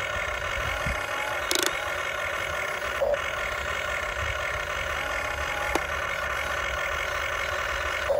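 Huina RC excavator running: its electric motors give a steady whine as the boom and bucket move, with a brief click about one and a half seconds in and short lower-pitched surges about three seconds in and near the end.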